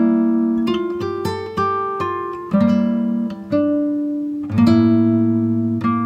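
Relaxation background music: a plucked acoustic guitar picking slow notes and chords, each ringing out and fading before the next.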